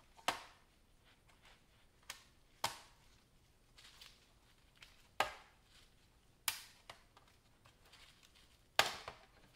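Snap-fit clips of an HP Chromebook x360's plastic bottom cover popping loose as the cover is pried off: a series of sharp plastic snaps and clicks at irregular intervals, the loudest near the end.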